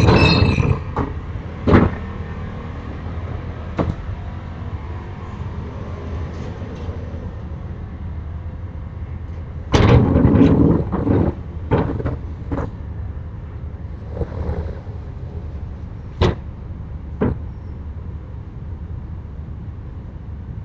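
Rain shutters (amado) being slid: one clattering slide of about a second and a half, starting with a sharp knock about ten seconds in, followed by scattered knocks, over a steady low rumble. A high squeal fades out just at the start.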